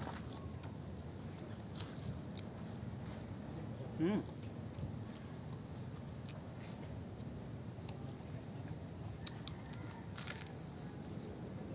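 Steady high-pitched drone of crickets or other insects, with a brief vocal sound from the eater about four seconds in. A few faint crunchy clicks come near the end as a fried spring roll is bitten.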